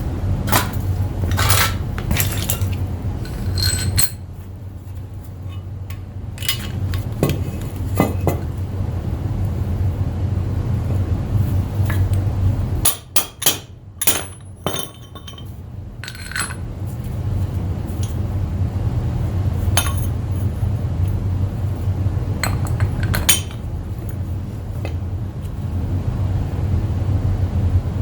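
Scattered metallic clinks and knocks of metal tools or parts being handled, over a steady low hum.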